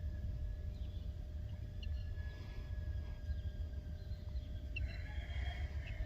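Quiet rural outdoor ambience: wind buffeting the microphone in a steady low rumble, with scattered faint bird chirps.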